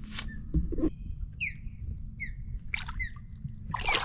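A bird calling about three times, each a short note sliding down in pitch, spaced under a second apart, over a low steady rumble.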